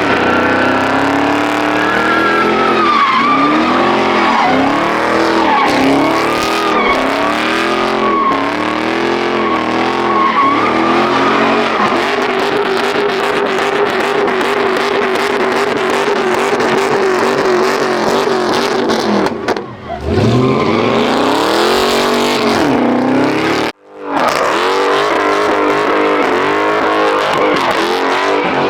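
A muscle car's V8 revving hard over and over with tyres spinning and squealing in a burnout. For several seconds in the middle the revs are held steady. The engine then drops off and climbs again, and after a brief break near the end the rapid revving resumes.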